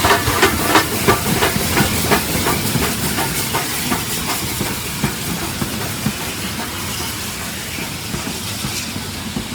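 Model steam train running: a quick, even clicking of wheels over rail joints for the first few seconds, fading into a steady hiss of steam.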